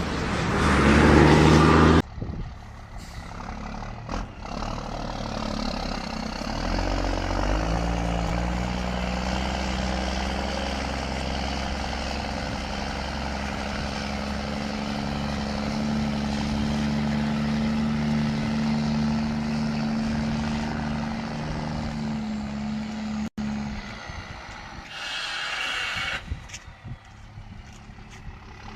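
Iveco truck's diesel engine running, its note climbing slowly as it pulls away and then holding steady. A loud rushing noise in the first two seconds cuts off suddenly, and a short loud hiss comes near the end.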